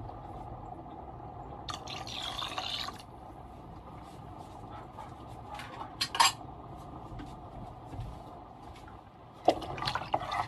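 Pot of chicken congee broth simmering, with small pops and bubbling over a steady hum, a brief louder rush of noise about two seconds in and a sharp clink about six seconds in. Near the end a metal spoon stirs the congee, scraping and clinking against the stainless steel pot.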